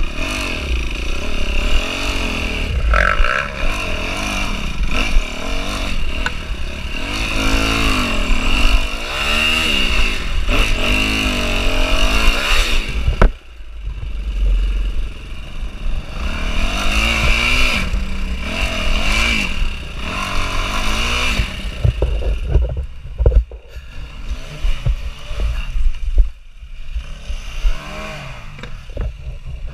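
Enduro dirt bike engine revving up and down over and over under load on a steep, rocky climb, with clatter from the bike and rocks. The engine dips sharply once, a little before halfway, then revs again. Toward the end it runs lower and unevenly, with scattered knocks.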